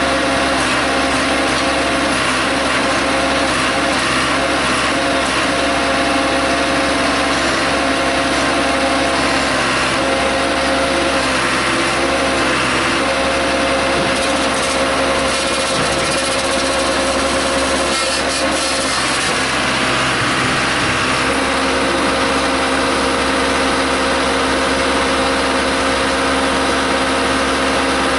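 Case 580C backhoe's engine running at a steady speed, its note shifting slightly about two-thirds of the way through.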